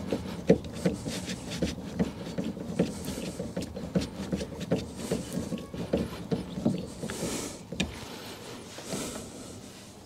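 Hand screwdriver driving small self-tapping screws through a speaker into its adapter in a car door, with rough rubbing and irregular short clicks as the screw turns. It eases off about eight seconds in.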